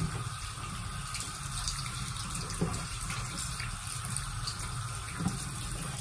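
Water running from a bathroom sink faucet in a thin stream into the basin, with hands moving under the flow.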